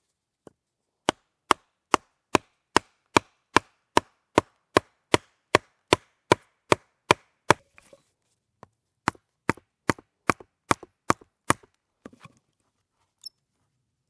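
Wood knocking on the spine of a fixed-blade knife set across the end of a round wooden peg, batoning the blade down into the wood. A long even run of sharp knocks, about two and a half a second, then after a short pause a shorter run.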